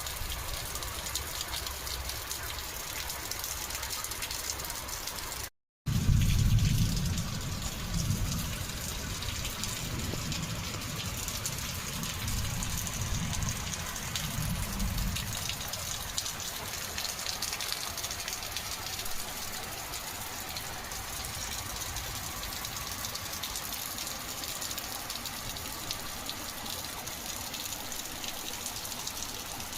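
Steady rain falling and splashing. About six seconds in the sound cuts out for a moment, then a louder low rumble runs for several seconds beneath the rain.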